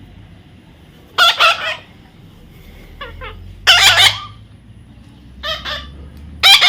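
A parrot squawking: about five short, harsh, loud calls spaced roughly a second apart, the loudest near the middle and at the end.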